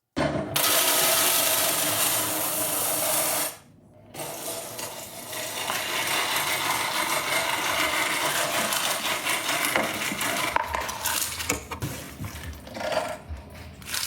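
Dense clattering and rattling with metal in it, breaking off briefly about three and a half seconds in and then running on.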